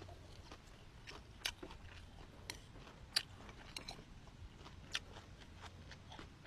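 Close-up chewing and biting of food, with a handful of sharp crisp clicks scattered through it, the loudest about three seconds in.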